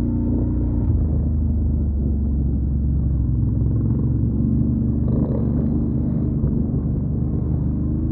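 Quad bike engine running steadily under way, its note holding level with small shifts about a second in and again past the middle.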